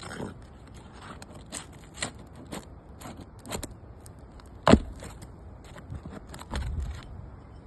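Asphalt shingles being worked loose on a roof: scattered clicks, scrapes and crackles, with one sharp knock a little over halfway through.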